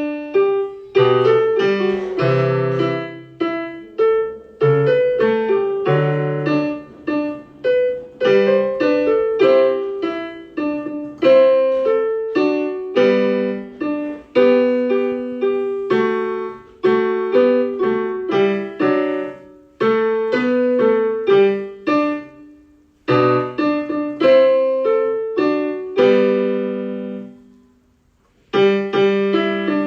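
A Christmas song played on a piano keyboard: struck notes of a melody over lower accompanying notes. Near the end the playing stops for about a second, then starts again.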